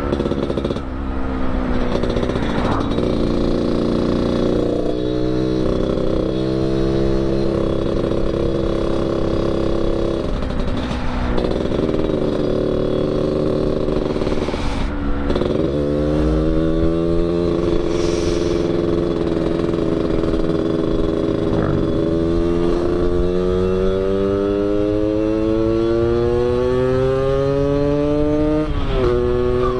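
Yamaha RX-King's 135cc single-cylinder two-stroke engine ridden on the road through an aftermarket under-belly 'kolong' exhaust tuned for the 'ngorok' snoring tone. Its pitch drops at gear changes several times, then climbs steadily through one long pull before dropping again near the end.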